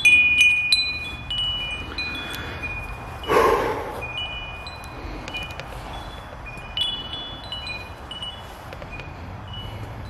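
Small metal-tube wind chime ringing: a loud cluster of clear high metallic tones right at the start as a gloved hand knocks the tubes, then lighter chiming on and off as the tubes swing, with another cluster of strikes about two-thirds in. A short rush of noise comes about three and a half seconds in.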